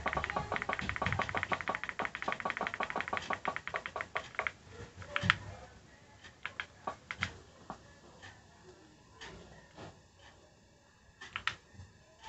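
A fast, even run of sharp clicks, about ten a second, that dies away after about four and a half seconds, then one loud click and scattered single clicks and taps.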